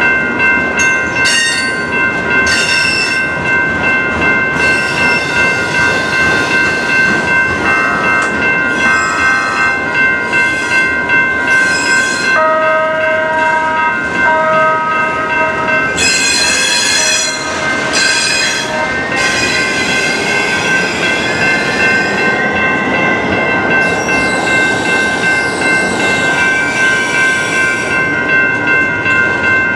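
Freight train of autorack cars rolling past, its wheels squealing at several steady high pitches over a rhythmic clatter of wheels on the rails. Some of the squeal tones slide upward partway through.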